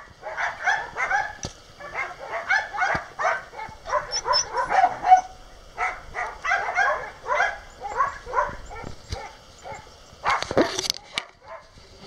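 Puppies calling: many short, high-pitched yelps in quick runs. About ten and a half seconds in comes a brief, louder rustling knock.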